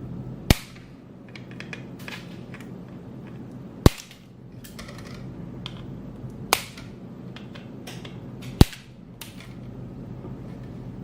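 Four sharp snaps as the tails of four large nylon zip ties are cut flush with cutters, a few seconds apart, with lighter handling clicks between.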